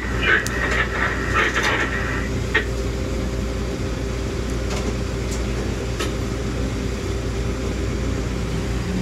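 Norristown High Speed Line railcar running, heard from inside: a steady hum throughout, a high squeal from the wheels over the first two and a half seconds, and a few sharp clicks from the wheels on the track.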